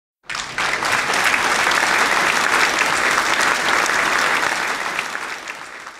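A group of people clapping, starting abruptly and dying away near the end.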